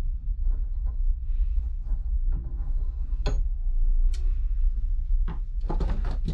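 Scattered metallic clicks and knocks from handling a Woden M130 bench vice, its handle bar sliding and dropping in the screw boss, with a brief faint ring after one knock. A steady low hum runs underneath.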